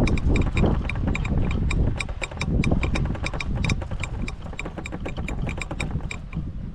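A golf cart rolling over fairway grass: a low rumble with a fast, uneven run of rattling clicks, easing off a little toward the end.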